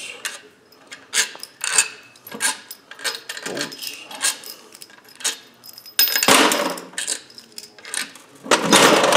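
Scattered metallic clinks and knocks of loose bolts and hand tools on a small engine's crankcase, with a louder rush of noise about six seconds in and again near the end.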